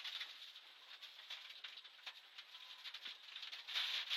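Steady hiss with a busy run of sharp clicks and rattles inside a rally car at speed, louder near the end.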